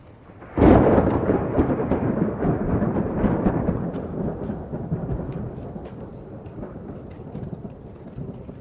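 A close lightning strike: a sudden sharp thunderclap about half a second in, followed by deep rolling thunder that slowly fades. Scattered sharp ticks of hail strike throughout.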